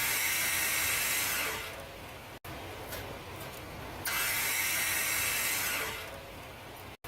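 Ford F-150 starter grinding during two crank attempts of about two seconds each, with the engine not starting. The uploader puts the noise down to a fault in the starter solenoid's pull-in and hold-in coils.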